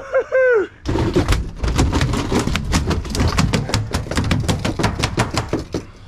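Freshly gaffed yellowfin tuna beating its tail on the boat's deck: a fast, uneven run of hard slaps, many a second, starting about a second in. It follows a brief whoop at the very start.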